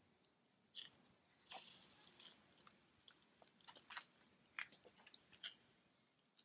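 Faint crackling and sizzling of fatty sheep-meat skewers over hot charcoal: a scatter of sharp pops with a brief hiss about a second and a half in, as fat drips onto the coals.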